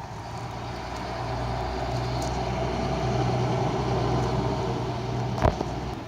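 A motor vehicle driving past, its engine hum and tyre noise swelling and then fading. A sharp click sounds near the end.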